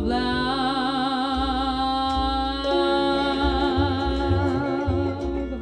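Jazz song with a female vocalist holding long notes with vibrato over guitar and bass, stepping to a second held note a little before halfway. The voice stops right at the end, leaving the guitar and bass.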